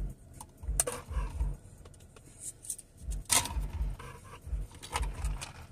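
Handling noise from a plastic drink cup with a straw, close to the phone's microphone: clusters of dull low thumps with a few sharp clicks and rustles.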